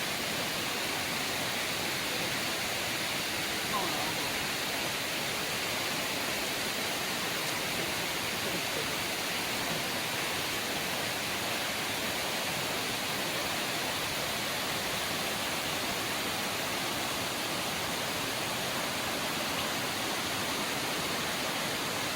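Waterfall water rushing and splashing, a steady unbroken roar of noise.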